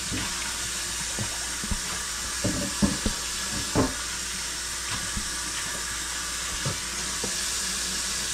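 Kitchen tap running steadily into a metal sink while cutting boards are rinsed under it, with a few short knocks and clatters as the boards are handled.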